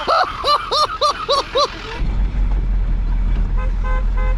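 A quick run of horn-like hoots, each rising and falling in pitch, about four a second. Then, after a cut, the steady low rumble of the tow truck's engine running, heard from inside its cab.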